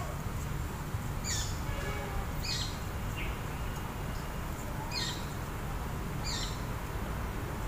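Wild birds chirping: short, sharp calls that sweep down in pitch, repeating every second or so, over a steady low background noise.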